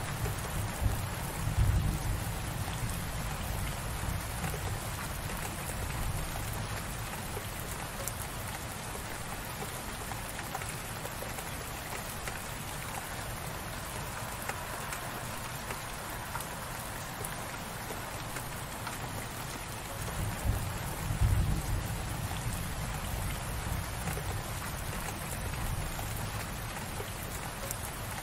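Steady light rain falling and pattering on surfaces. A low rumble swells briefly twice, about two seconds in and again about twenty seconds in.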